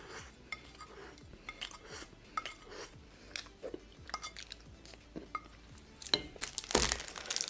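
Wooden spoon scraping and tapping on a glass plate as the last crumbs are scooped up: a scattered series of light clicks and scrapes. Near the end comes a louder, noisier clatter.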